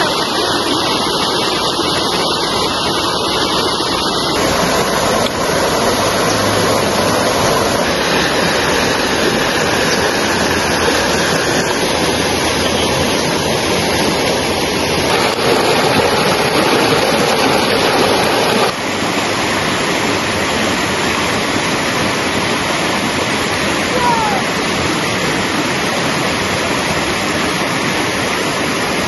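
River water rushing over rocks and small rapids, a steady loud noise. Its level and character change abruptly about four seconds in and again about two-thirds of the way through.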